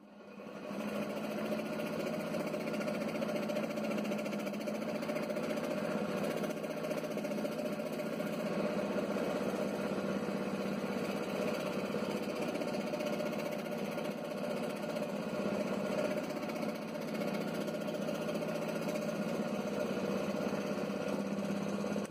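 Electric scroll saw starting up and then running steadily while a thin white letter is fed through its reciprocating blade, cutting out the curves of a lettered name.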